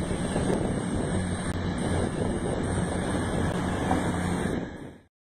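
East Midlands Railway Class 222 Meridian diesel multiple unit running past, a steady rumble with a low engine drone, with wind on the microphone. It fades out quickly near the end.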